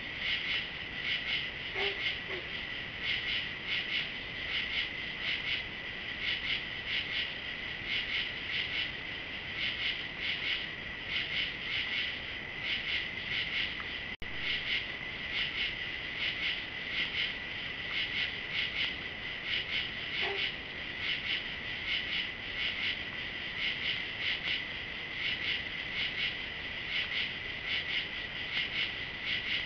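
Night chorus of crickets and other insects: a steady high trill overlaid with regular rhythmic pulsing chirps, cutting out for an instant about halfway through.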